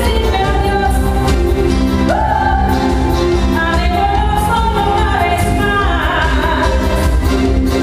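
A song playing loud: a lead voice singing a melody with sliding notes over full instrumental backing.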